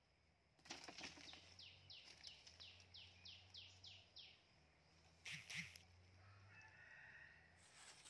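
Bamboo broom swishing over dry leaf litter in quick repeated strokes, about three a second, with a sharper double swish about five seconds in.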